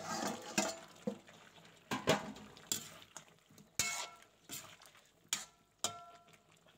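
Metal spatula stirring potato and cauliflower curry in a kadhai, scraping and clinking against the pan in irregular strokes. A few of the strikes leave a short metallic ring.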